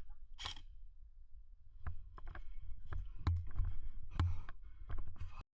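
Steady low rumble on the microphone, with a series of sharp knocks and clicks from about two seconds in. The sound cuts off suddenly near the end.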